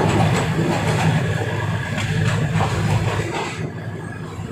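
Diesel railcar running along the line, heard from on board: a steady low engine drone with the wheels clicking over rail joints. The drone eases off about three seconds in.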